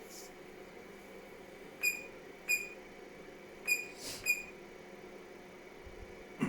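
Four short, high electronic beeps in two pairs, about two seconds in and again near the middle, like the button beeps of bench test equipment, over a steady low electrical hum.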